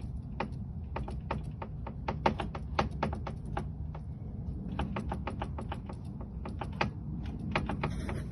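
Rapid, uneven clicking and knocking from a 2015 Mercedes-Benz S550's steering rack and pinion as the steering is worked, over the steady hum of the running engine. The owner takes this knock for a faulty rack and pinion.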